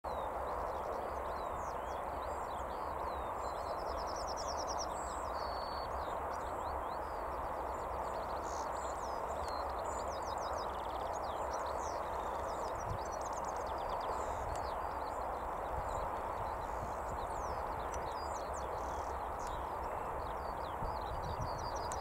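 Several small songbirds singing and chirping, including a quick trill of repeated notes about four seconds in. Under them runs a steady rushing background noise.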